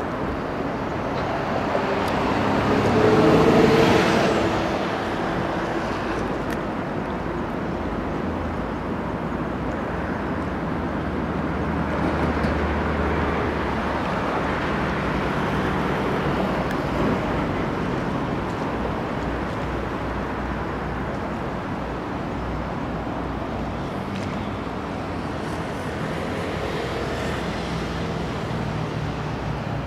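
Steady rumble of motor vehicles and city traffic, swelling louder with a passing vehicle about three to four seconds in.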